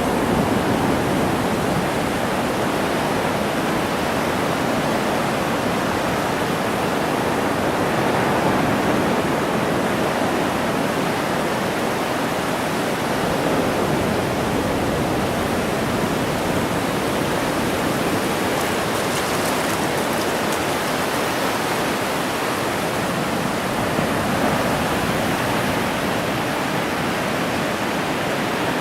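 Ocean surf breaking and washing up the beach: a steady rush of water noise with slow, gentle swells.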